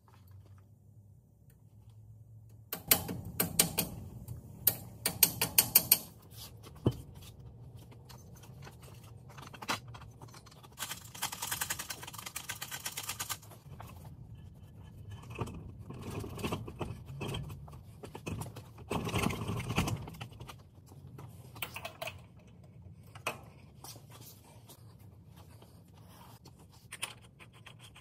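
Hand work on a truck's steer axle: a run of sharp, rapid metallic clicks a few seconds in, then scraping and rattling of metal parts and tools, with scattered clicks.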